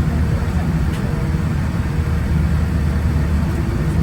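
Cabin noise inside a Boeing 787-9 as it taxis: a steady low rumble from the Rolls-Royce Trent 1000 engines at idle and the rolling gear, with a faint steady hum above it.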